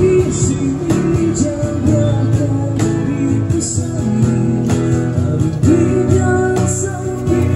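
Live acoustic guitar strummed through the song's chords, with a cajon tapping out the beat and a male voice singing at times.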